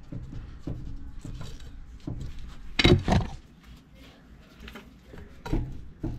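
Pry bar levering up on a Toyota Tundra's front wheel to check the lower ball joint for play, giving short repeated knocks about every half second to second. A louder double knock comes near the middle.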